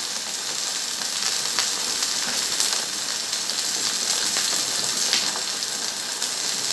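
Marinated chicken breast sizzling as it fries in a pan: a steady hiss with a few scattered crackles.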